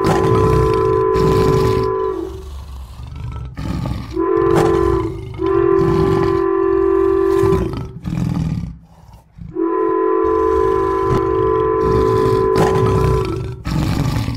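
Diesel locomotive air horn blowing four long blasts with short gaps between, the third one brief, over a low rumbling.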